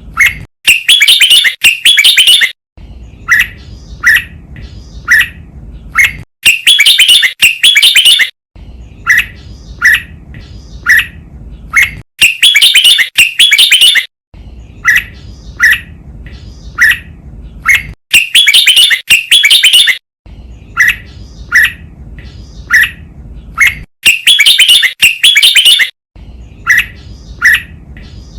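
Red-whiskered bulbul song: a loud, rich phrase about two seconds long, then a run of short separate notes. The cycle repeats about every six seconds, as in a looped training recording. A faint low hum lies under the quieter parts.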